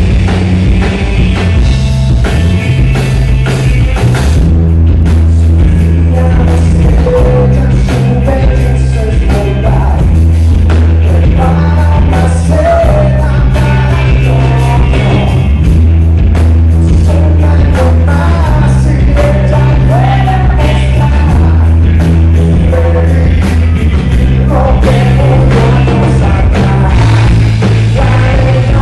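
Live rock band playing loudly: a male singer singing over electric guitar, a heavy bass line and a steady beat.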